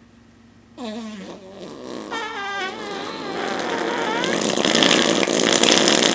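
A fake fart sound blown with the mouth against skin. It starts about a second in with a wavering pitched tone and turns into a long, rough buzz that grows louder toward the end.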